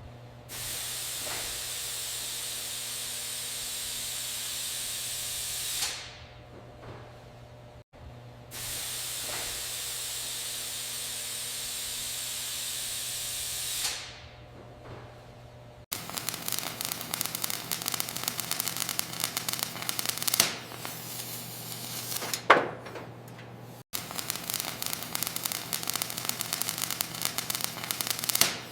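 A spray nozzle gives a steady hiss in two stretches of about five seconds each, with hard cuts between them. Then come two stretches of fast, rough scraping strokes, like sanding, with a short swish between them.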